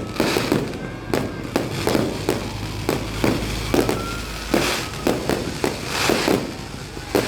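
Fireworks display: a steady run of overlapping bangs and pops, several a second at times, each trailing off in an echoing smear.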